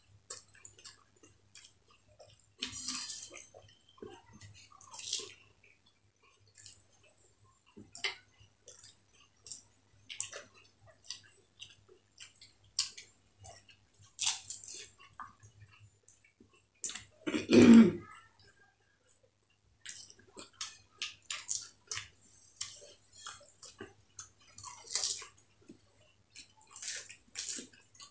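Fuchka (pani puri) being eaten: crisp puri shells dipped in tamarind water crunching and squishing, with wet chewing in scattered short bursts. One brief, louder low sound comes about seventeen seconds in.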